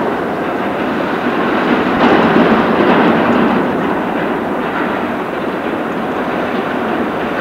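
Heavy diesel earthmoving machinery working, a loud, steady rumbling noise that swells about two seconds in and eases after about four.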